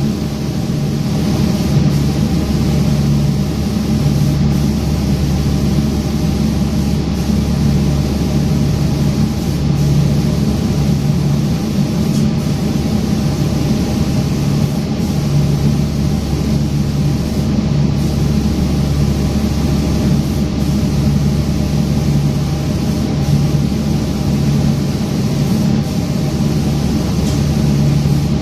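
Automatic furniture spray-painting machine running: a steady, loud mechanical hum with a continuous hiss of the spray gun atomizing lacquer.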